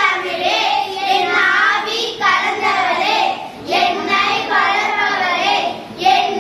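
A small group of young schoolchildren singing a poem together in unison, line by line with brief pauses between phrases.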